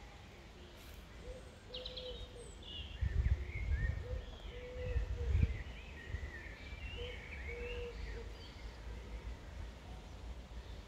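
Outdoor ambience of small birds chirping and twittering, with a lower note that repeats every couple of seconds. Gusts of wind rumble on the microphone about three and five seconds in.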